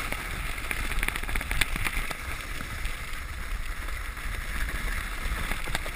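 A sled sliding down a packed-snow trail: a steady scraping hiss of the sled over the snow, with wind rumbling on the microphone and a few short clicks over bumps.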